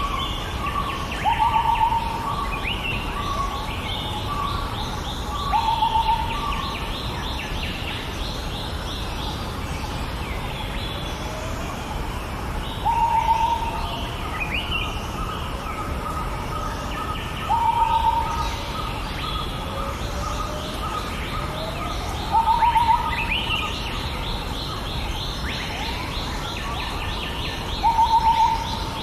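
Birds calling and chirping, with one louder short call repeated about every four to five seconds, over a steady background hiss.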